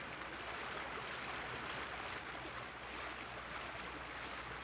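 Steady, even hiss with no distinct event, the background noise of the soundtrack in a pause between lines.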